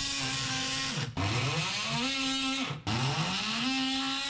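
A power tool's motor spinning up, running briefly at full speed and stopping, in three short runs with a high hiss under each.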